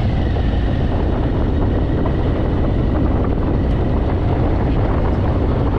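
Harley-Davidson V-twin motorcycle running steadily at riding speed, its engine under a steady low rush of wind on the rider's microphone.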